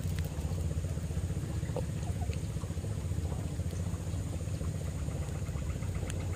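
Small boat engine idling steadily, a low, fast, even pulsing.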